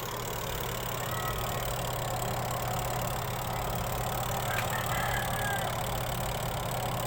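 Spin-dryer motor of a Hanabishi twin-tub washing machine running with a steady hum, the spin basket turning again after its wiring was reconnected.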